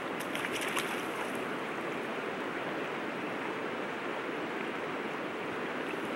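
River water running over stones: a steady, even rushing, with a few faint clicks in the first second.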